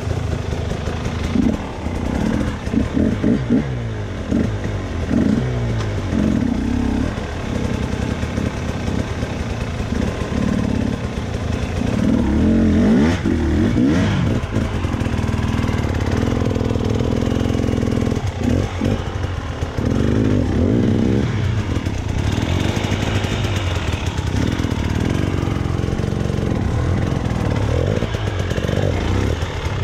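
Husqvarna two-stroke enduro dirt bike engine revving up and down in short repeated bursts as it is ridden up a steep, rocky climb, settling into steadier running near the end.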